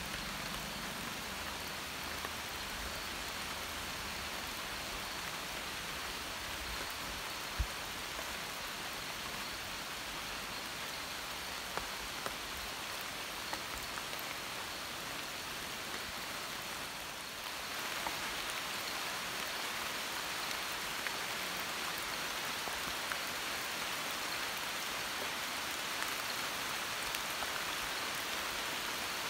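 Monsoon rain falling steadily on forest foliage, an even hiss with a few louder single drips. The rain grows slightly louder about two-thirds of the way through.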